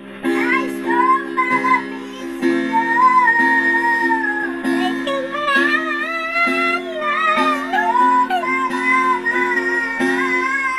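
Acoustic guitar strummed in steady chords that change about once a second, under a high, wavering melody line.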